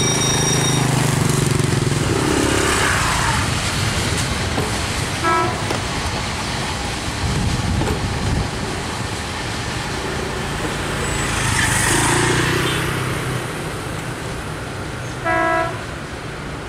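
Freight train wagons rolling along the rails: steady wheel-on-rail running noise that eases slightly as the train moves away. Two short horn toots cut through it, about five seconds in and again near the end.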